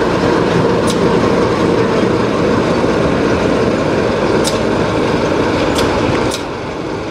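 Class 33 'Crompton' diesel-electric locomotive's Sulzer eight-cylinder engine running steadily as the locomotive moves past and away, with a few sharp clicks from the wheels and track. The sound drops about six seconds in as it draws off.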